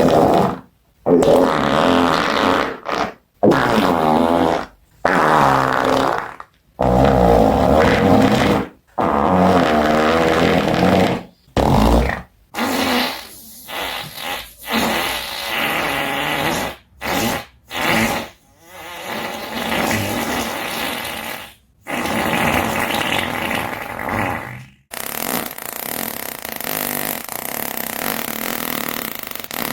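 A string of fart sounds, about a dozen, each one to two seconds long with short silences between them. The earlier ones are low and pitched, the later ones rougher, and near the end a steady hissing one runs on without a break.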